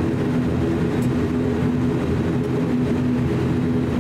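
ATR 42-600 turboprop engines and propellers running at low power, heard from inside the cabin as the aircraft rolls out on the runway after landing: a steady drone with a constant hum.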